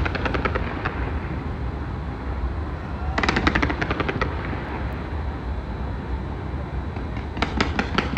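Fireworks firing in rapid volleys of sharp pops, like machine-gun fire, from rows of pyrotechnics along a skyscraper. There is one volley at the start, another about three seconds in and a third near the end, over a steady low rumble.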